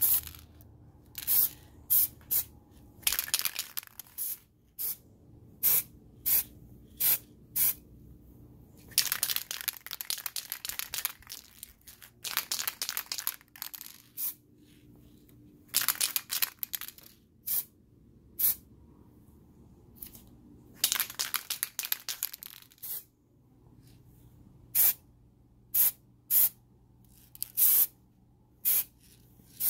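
Aerosol can of marbling spray paint hissing in a string of short spurts and several longer sprays of one to two seconds, with brief pauses between them.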